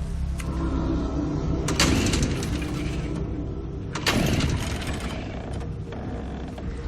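Chainsaw engine running steadily, with two loud bursts about two seconds apart.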